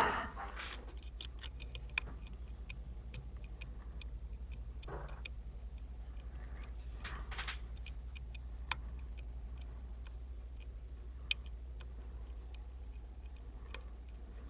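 Irregular small metallic clicks of a lock pick working the pins of an Emhart Black Belt pin-tumbler lock, with a few sharper clicks. A steady low hum runs underneath.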